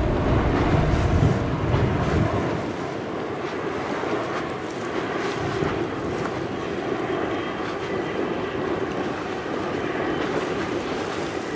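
Boeing 777 Freighter on landing approach with gear down, its GE90 jet engines giving a steady, even roar. Wind buffets the microphone with a heavy low rumble over the first two seconds.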